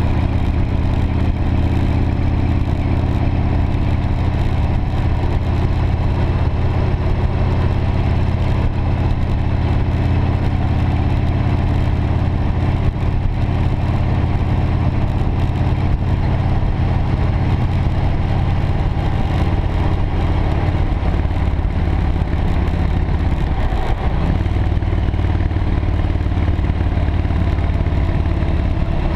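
V-twin cruiser motorcycle engine running steadily at road speed, with wind and road noise. The engine note dips briefly a few seconds before the end.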